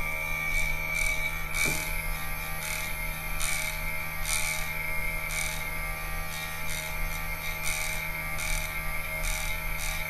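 12 V DC mini air-conditioning compressor running steadily under its controller board, a hum with an even high-pitched whine over it.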